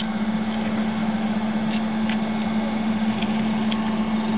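A steady machine hum: one constant low tone under an even hiss, with a few faint short ticks.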